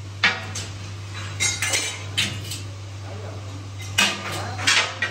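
Hammer striking a welded steel frame: about six sharp, irregular metal clanks, some ringing briefly, over a steady low hum.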